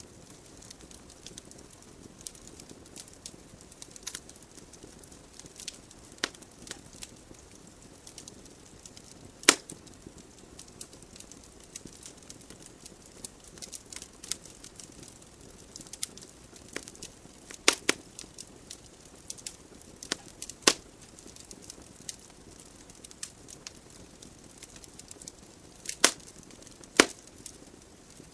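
Wood fire burning in a fireplace: a soft steady hiss of flames with irregular crackles and pops of the burning logs, a few sharper snaps standing out.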